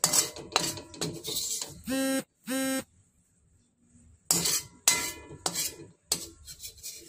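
Metal spatula scraping and clattering against a wok as the cooked food is scooped out onto a plate. Two short steady tones sound about two seconds in.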